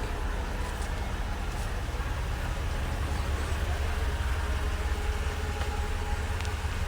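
A 4x4 truck running on a dirt trail, with a steady low engine and drivetrain rumble under a haze of road noise and a few faint knocks.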